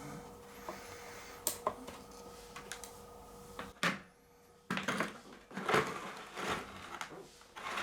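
Handling sounds from potting work: bonsai soil being worked in by hand or scoop around the tree, with a few sharp clicks and knocks, then several rustling, scraping strokes in the second half. A faint steady hum runs underneath.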